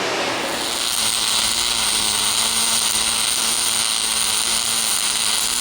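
Welding arc: a steady hiss with a low electrical buzz, growing slightly about half a second in.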